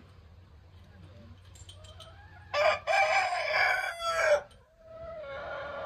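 A rooster crowing once: a loud call of about two seconds with a short first note and a long last note that falls away. A quieter, steadier call follows near the end.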